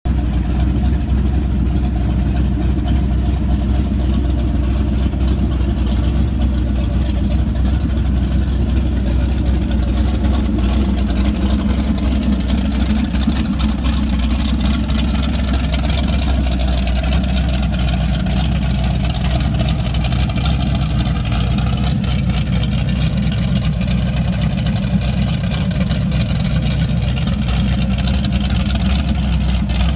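A 540-cubic-inch, 700 hp big-block V8 in a 1989 28-foot Warlock powerboat runs steadily on a garden hose, with a deep exhaust rumble that stays even and does not rev. Cooling water splashes out of the transom exhaust outlets.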